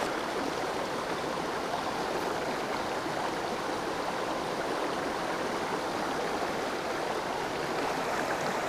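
Small, clear rocky creek running shallow over cobbles and boulders: a steady rush of moving water.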